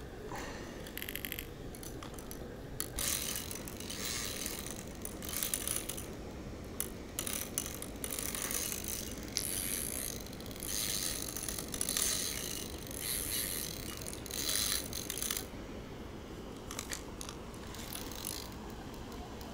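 Large spinning fishing reel being wound in repeated bursts while a hooked carp is played, its gears and clicking mechanism giving an uneven ratcheting rasp with short pauses between turns.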